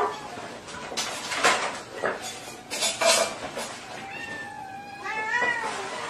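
Kittens meowing, with a longer wavering meow from about four seconds in and several short sharp noises in between.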